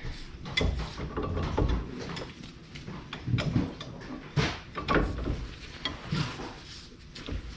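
Irregular metallic clicks and knocks of a hand wrench or ratchet and socket being worked on a seized, rusty brake bolt.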